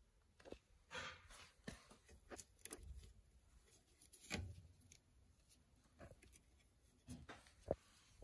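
Near silence with scattered faint clicks and light knocks from parts being handled in the opened dryer, about a dozen in all, the sharpest near the end.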